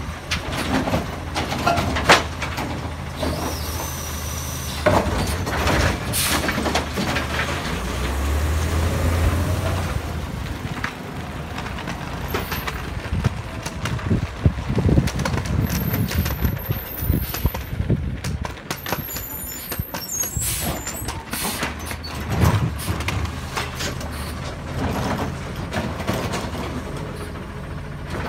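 Automated side-loading garbage truck at work: its diesel engine running throughout, with clanks and bangs as the arm dumps a cart, a hiss of air brakes, and the engine pulling harder as the truck moves off.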